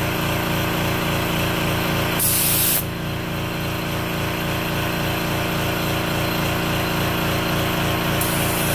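Mini gravity-feed HVLP spray gun with a 0.8 mm nozzle giving a short burst of spraying hiss about two seconds in, then another starting near the end, as the trigger is pulled to test its flat horizontal fan pattern. Under it, the air compressor feeding the gun runs with a steady low pulsing hum of about five beats a second.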